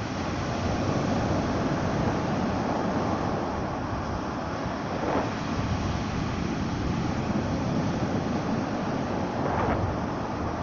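Black Sea surf washing on the shore, with wind buffeting the microphone. Two brief louder splashes come through, one midway and one near the end.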